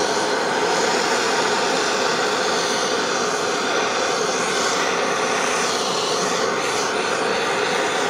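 Gas blowtorch burning steadily, its flame heating a fluxed elbow joint up to silver-soldering temperature.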